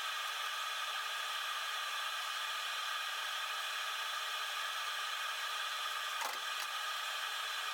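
A steady, thin hiss with no low end, with a short click about six seconds in.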